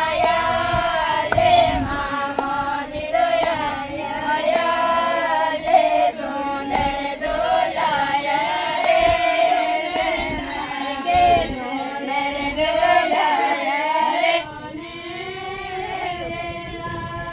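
Group of women singing a Mayra folk song together, several voices on one wavering melody. It drops noticeably quieter about fourteen seconds in.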